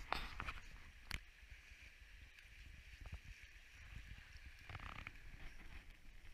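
Footsteps crunching in snow, a few sharp ones in the first second, over the faint steady rush of a small forest stream and low wind rumble on the microphone.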